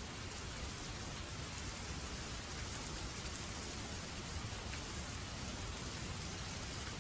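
Steady rainfall, an even hiss of drops with a low rumble underneath.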